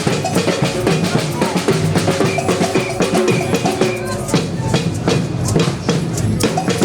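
Batucada percussion group playing live: deep bass drums and snares beating a dense, driving rhythm with no break.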